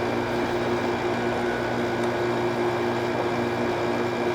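2006 General Electric 5150 BTU window air conditioner running, its LG compressor humming steadily under the rush of the fan. It is cooling: cold air is coming off the coil.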